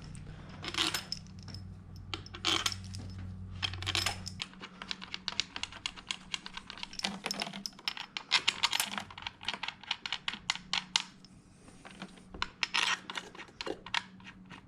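Bolts clinking and tapping as they are dropped into the bolt holes of a fuel injector rail: a long string of light metallic clicks, coming thick and fast in the middle.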